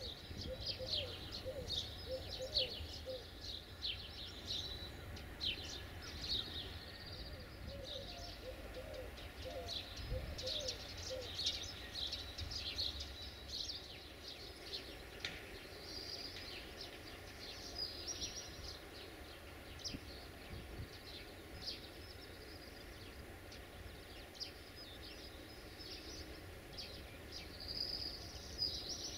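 Small birds chirping and singing over a steady low rumble of outdoor background noise, with short runs of lower repeated calls a couple of seconds in and again about eight seconds in.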